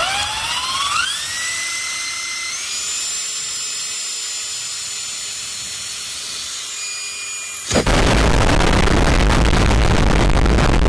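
Sears Craftsman corded electric drill spinning up with a rising whine, then running at a steady high speed with a slight step up in pitch as it starts drilling a pilot hole. Nearly eight seconds in it is abruptly replaced by a louder, steady rushing noise.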